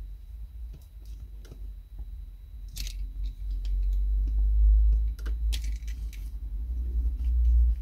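Small metallic clicks and light rattles of a screwdriver and a choke cable's metal end fitting being handled while a tiny screw is undone, over a steady low rumble that grows louder.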